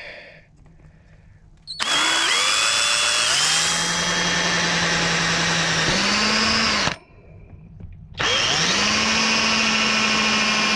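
Power drill pre-drilling screw pilot holes in ash wood, run twice: each run winds up in pitch and then holds a steady whine. The first starts about two seconds in and lasts about five seconds; after a short pause the second starts and keeps going.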